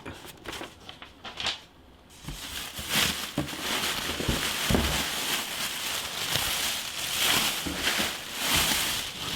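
Paper and plastic packaging crinkling and rustling as it is handled, with a few light knocks.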